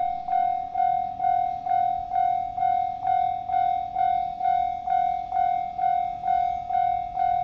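Japanese level-crossing alarm ringing its electronic bell tone, one note pulsing evenly a little over twice a second, the warning that a train is approaching while the barrier arms come down.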